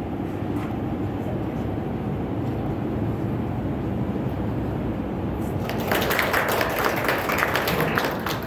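Steady low room noise, then an audience clapping from about five and a half seconds in for nearly three seconds.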